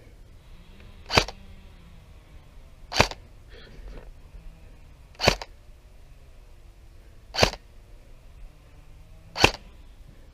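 Airsoft gun fired in single shots: five sharp cracks, evenly spaced about two seconds apart.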